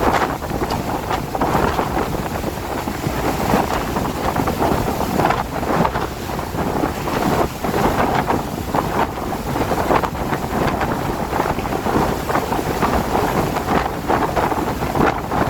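Strong wind in a rainstorm, gusting without a break and buffeting the microphone in irregular rumbling blasts.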